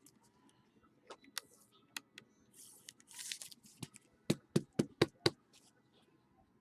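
Trading cards and their plastic packaging being handled: scattered light clicks and a brief rustle, then a quick run of five sharper clicks near the end.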